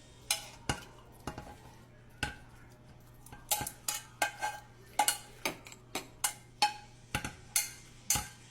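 A metal spoon clinking against the side of a container while stirring the honey cough-syrup mixture: a run of sharp, ringing clinks, a few at first, then quicker and louder from about three and a half seconds in.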